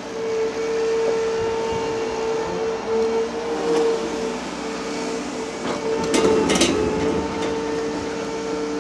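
Liebherr R 930 crawler excavator running steadily with a constant hydraulic whine. About six seconds in comes a short burst of clattering knocks and scraping.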